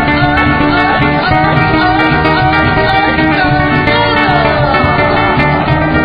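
Latin band music with guitars over a steady bass line; a melody line slides downward about four seconds in.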